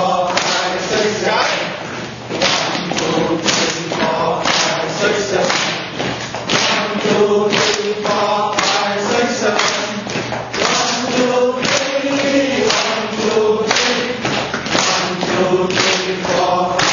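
A group of people chanting together in unison while clapping their hands and stamping their feet on a tiled floor in a steady rhythm.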